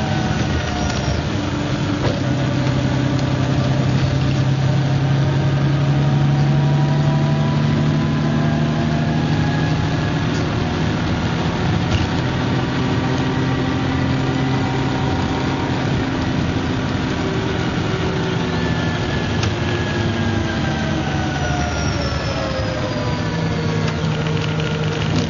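Midland Bluebird MCW Metrobus double-decker bus running under way, its engine note holding steady for most of the time, then falling in pitch over the last few seconds.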